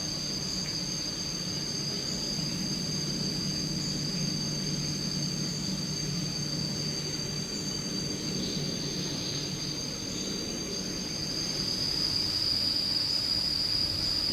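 Countryside ambience of insects droning steadily in two high pitches over a low rumble. About two-thirds of the way through the higher drone stops and the lower one grows louder as the rumble fades.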